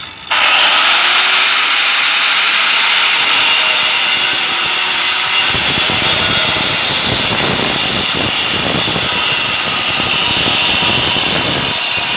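A power tool's diamond wheel cutting masonry: a loud, steady grinding hiss that starts suddenly just after the beginning, with a rougher low rumble joining about five and a half seconds in.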